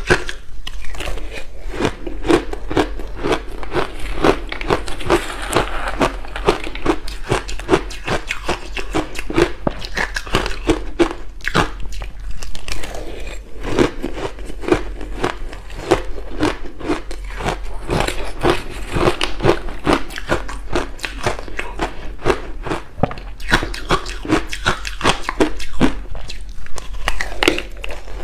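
Close-up crunching of ice chunks coated in matcha and milk powder, bitten and chewed in a dense, irregular run of crisp cracks.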